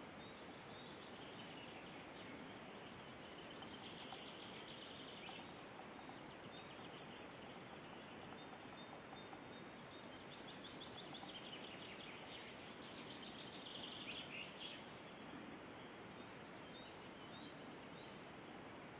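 Faint, steady outdoor hiss with a small songbird singing a rapid, high trilled phrase twice, about four seconds in and again around thirteen seconds.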